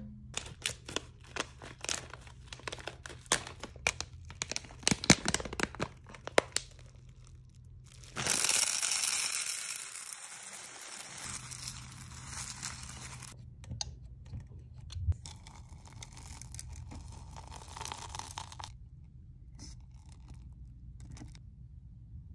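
Sharp clicks and taps over the first several seconds, then a loud rushing rattle lasting about four seconds as hard wax beads are poured into a wax warmer's metal pot. Softer scraping follows as a wooden stick stirs the beads.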